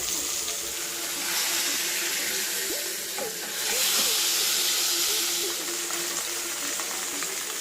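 Marinated pearl spot fish (karimeen) shallow-frying in hot oil in a pan, a steady sizzle that swells louder twice in the middle.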